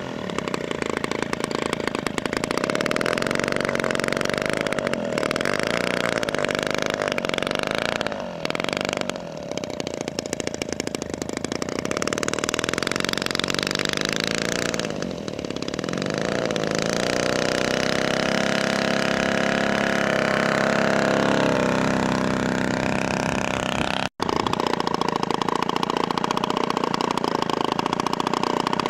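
The 3W-55 two-stroke petrol engine of a 1/5-scale model Spitfire running, its pitch rising and falling with the throttle as the model taxis. After a brief break about 24 seconds in, it runs on at a steady idle.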